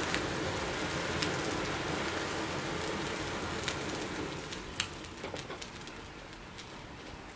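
A sprayed-fuel flame burning in a perforated steel test box, a steady rushing noise with scattered sharp cracks. It fades away over the last few seconds as the flame dies out.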